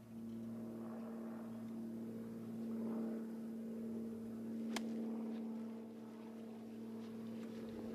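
A steady motor hum throughout, with one sharp click nearly five seconds in as a golf club strikes the ball on a short wedge shot.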